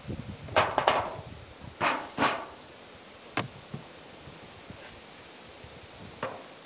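A beehive being opened by hand: the sheet-metal-covered roof is lifted off and the wooden inner cover pried up, giving a few short scrapes in the first couple of seconds, a sharp click about three and a half seconds in and a fainter knock near the end.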